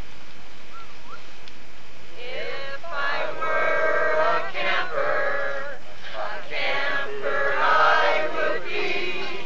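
A group of people singing together, starting about two seconds in, with held notes and short breaks between phrases.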